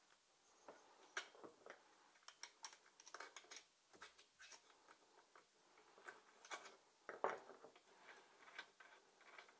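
Faint, irregular metallic clicks and taps of hand tools working on a small two-stroke engine, with one louder knock about seven seconds in.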